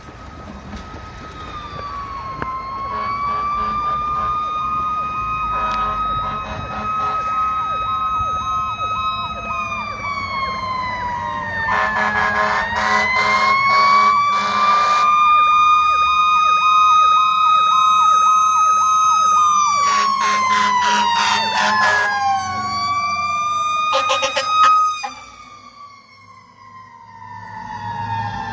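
Fire engine sirens wailing, rising and falling in pitch, with a faster pulsing siren tone underneath. Several harsh horn blasts come in; the loudest is about 25 seconds in, after which the sound drops off sharply and a siren winds down in pitch.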